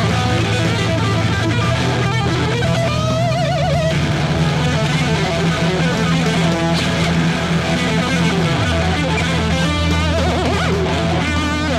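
Background music: a guitar-led track with electric guitar over a steady bass line, the bass note shifting a few times.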